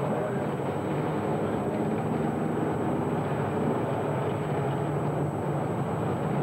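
Steady rumble of several car engines running together at an even pace, with no sudden revs or impacts.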